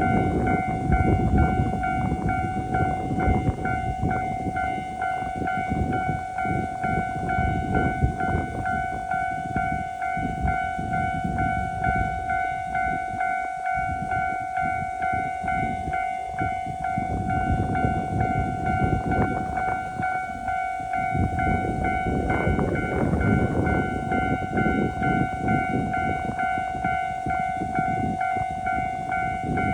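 Japanese level-crossing warning bell ringing its steady electronic "kan-kan" tone, over the low rumble and clatter of a train passing on the Minami-Aso Railway.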